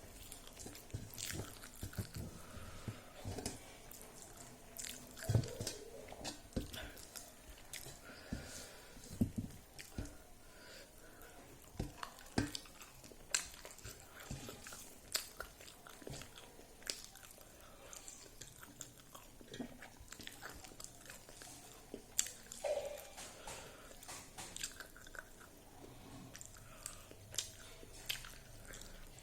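A person chewing and biting close to the microphone while eating rice with fried dried pork: irregular sharp clicks and smacks of the mouth, with no talking.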